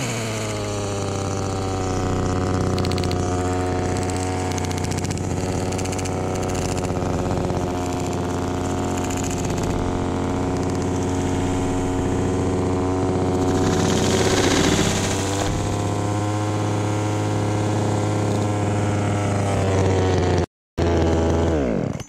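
A chainsaw's small two-stroke engine idling steadily after its revs fall away at the start. There is a brief dropout near the end, then the pitch falls again.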